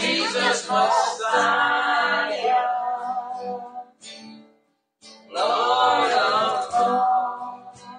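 Worship song: singing over plucked acoustic guitar, in two long phrases with a short pause between them a little past halfway.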